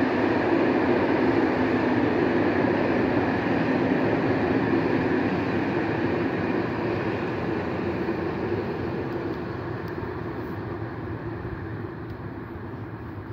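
Passenger train's coaches rolling past on the rails, a steady rumble that slowly fades as the train draws away.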